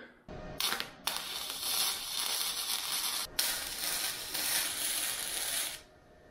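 Wire-feed arc welder welding steel strut channel and square tube, its arc crackling and hissing steadily. After a short first burst, it runs in two long passes with a brief break about three seconds in, and it stops shortly before the end.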